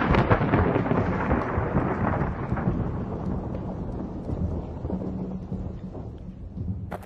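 Rolling thunder: a crack just before this stretch dies away into a long rumble that fades slowly over several seconds.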